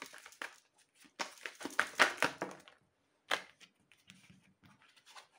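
A deck of tarot cards being shuffled by hand: a quick patter of card flicks and slaps, densest from about a second in to nearly three seconds. One sharper snap follows, then a few light taps.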